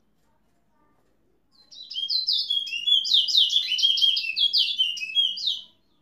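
Caged male twa-twa (towa towa, large-billed seed finch) singing one fast, loud phrase of quick down-slurred whistled notes. The phrase starts about a second and a half in and lasts about four seconds before stopping sharply.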